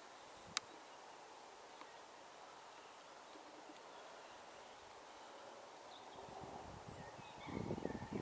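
Quiet outdoor ambience with a few faint bird chirps. A single sharp click comes about half a second in, and near the end there are several dull low thumps and rustles, the loudest sounds here.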